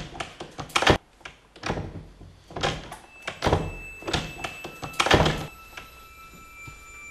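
A series of heavy thuds at uneven spacing, roughly one a second, that stop about five seconds in. Thin steady high tones come in partway and hold under them.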